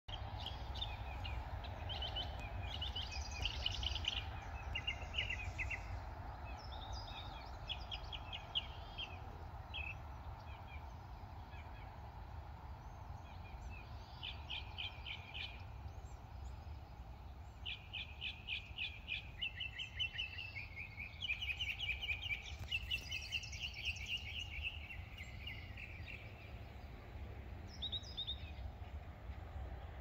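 Songbirds singing short, repeated trilled phrases, several overlapping a little past halfway, over a steady low rumble of distant road traffic.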